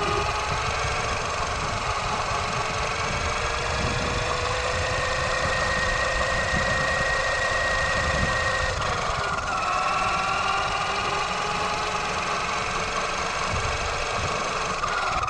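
Axial Yeti XL RC truck driving over concrete, heard from its onboard camera: the electric motor and drivetrain gears whine, the pitch rising and falling with speed, over a constant rumble from the tyres and chassis. The whine dips about nine seconds in, climbs again, and falls off near the end as the truck slows.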